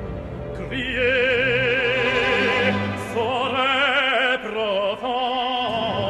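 Operatic tenor singing long held notes with a wide vibrato over an orchestra, the voice coming in about a second in and moving to new notes a few times.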